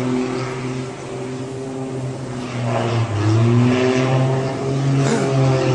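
Small propeller aircraft's engine droning steadily, its pitch wavering and gliding as the plane dives toward the sea.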